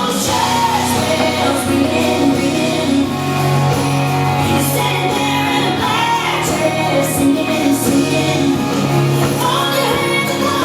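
Country-pop song playing, with singing over a steady band backing.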